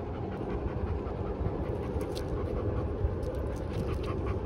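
Mixed-breed dog panting on its leash, a dog that panics when outdoors. Under it runs a steady low rumble.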